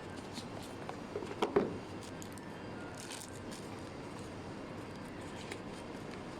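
Handling noises over a steady background hiss: a few clicks and a sharp knock about a second and a half in, then a soft scrape and scattered faint ticks.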